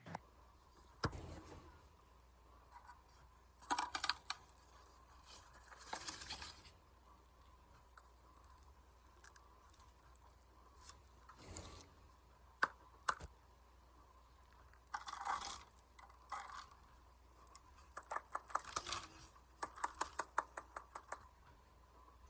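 Hands taking apart a firework mortar shell: paper and cardboard scraping and tearing, with small clicks and rattles, and a fast run of clicks near the end.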